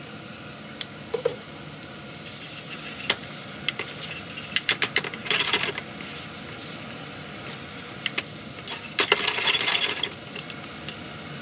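Boiled spinach and sliced garlic sizzling in oil in a frying pan over a low flame, stirred with a utensil that clicks against the pan. There are two short rattling bursts, about halfway and near the end.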